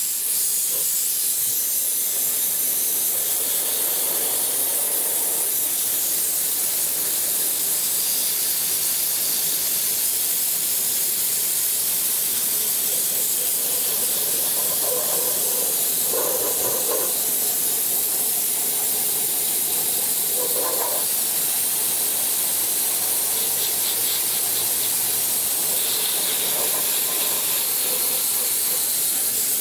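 Dry ice blaster nozzle blasting a car's undercarriage: a loud, steady hiss of compressed air and dry ice that cuts in suddenly at the start and holds without a break.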